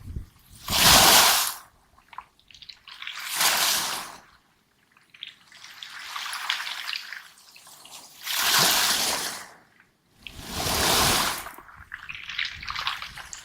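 Waves surging up a pebble beach and drawing back, each wash a couple of seconds apart, with the clicking rattle of stones dragged by the backwash.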